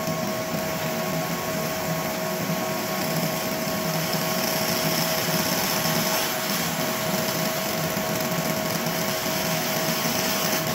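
ComMarker B4 galvo fiber laser engraving a picture onto a black metal card: a steady buzzing hiss with a constant mid-pitched whine as the beam scans line by line.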